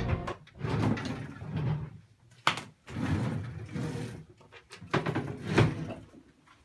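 Shuffling and rustling movement noises with two sharp knocks, one about a third of the way in and one near the end.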